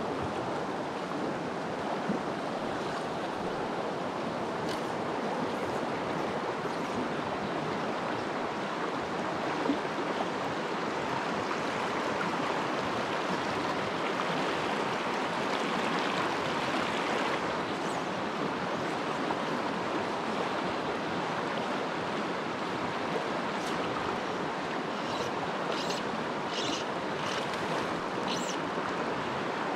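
Mountain trout stream rushing over shallow riffles, a steady even wash of moving water.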